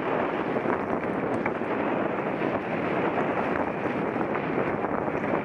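Steady rushing noise of a mountain bike being ridden on a trail: wind on the onboard microphone mixed with tyre noise, with a few faint ticks and rattles.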